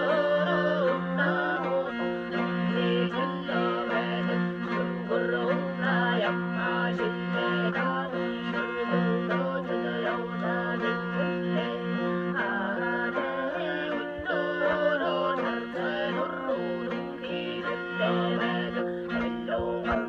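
Traditional Mongolian folk music: a horsehead fiddle (morin khuur) bowed over a steady low drone, accompanied by a plucked long-necked lute with a skin-covered body.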